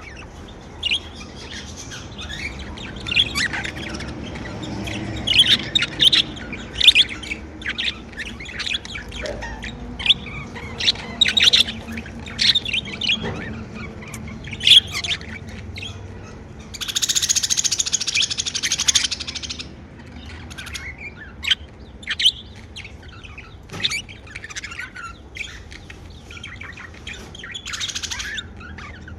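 Pet budgerigars chirping: a busy run of short, sharp chirps, with a couple of seconds of denser, harsher chatter a little past halfway.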